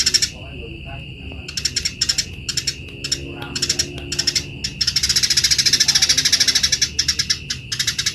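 Eurasian tree sparrows giving harsh, rapid chattering calls in quick trains of pulses, typical of sparrows squabbling. One dense, unbroken chatter runs from about five to six and a half seconds in, over a steady high whine.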